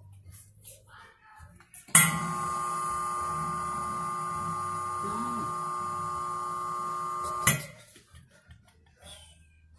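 Hat steamer releasing a jet of steam, a steady hiss with a whistling tone, switched on with a click about two seconds in and shut off with a click some five seconds later while a felt hat brim is steamed for shaping.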